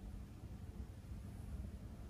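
Quiet room tone: a steady low hum and rumble with nothing else standing out.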